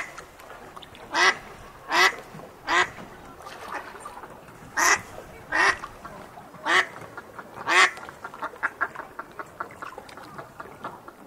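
Duck quacking: loud single quacks roughly a second apart, then a run of softer, quicker quacks over the last few seconds.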